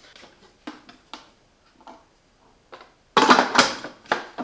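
Plastic water tank and hinged lid of an espresso machine being handled: a few faint clicks, then a louder burst of plastic clicks and knocks about three seconds in.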